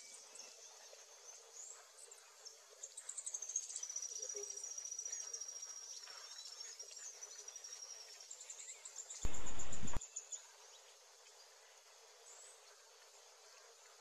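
Horned sungem, a hummingbird, giving thin, very high squeaky calls, with a long high trill from about three to eight seconds in and a shorter one around nine to ten seconds. A brief, loud rush of noise cuts in about nine seconds in.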